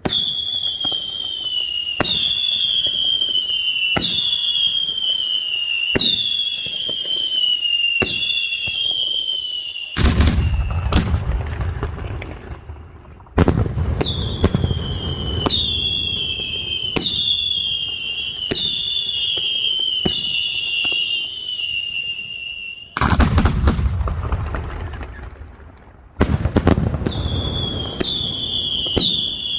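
Castillo fireworks by Pirotecnia Nadal-Martí: whistling fireworks going off in quick succession, each a shrill whistle that falls slightly in pitch. They are broken twice by loud booming bursts of shells, about a third of the way in and again near the end, before the whistles resume.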